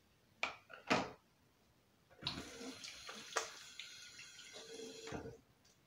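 Two short knocks, then a bathroom tap running for about three seconds before it is turned off.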